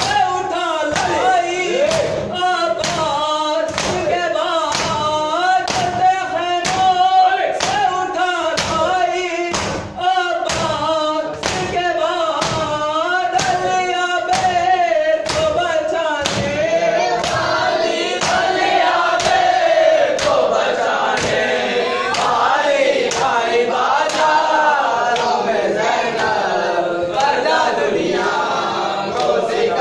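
A group of mourners chanting a nauha (lament) in unison, with rhythmic chest-beating (matam) thuds about one and a half times a second. The beats grow fainter about halfway through as the voices continue.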